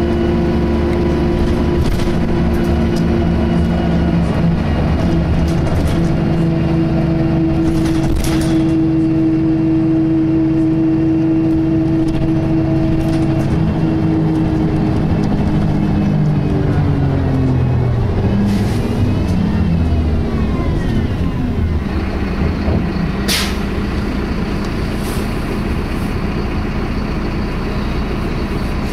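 Optare Tempo single-decker bus heard from inside while driving: a steady whine from the Allison automatic gearbox drivetrain, a whine the uploader likens to a Voith transmission and is unsure is normal. Its pitch falls as the bus slows about two thirds of the way through, then steadies again, with rattles and a sharp click or hiss near the end.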